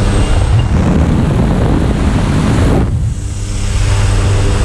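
Jump plane's engine and propeller running steadily, heard from inside the cabin, with loud wind rushing through the open door. The rushing thins out suddenly about three seconds in while the engine drone carries on.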